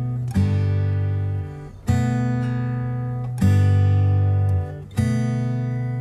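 Background music: acoustic guitar strumming, with a new chord about every one and a half seconds, each left to ring out.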